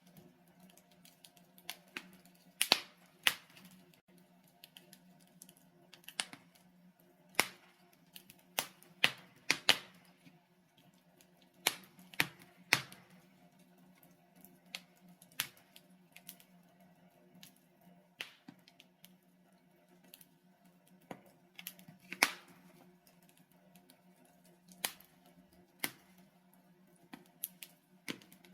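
Wood logs burning in a fireplace, crackling with irregular sharp pops, a few of them much louder, over a steady low hum.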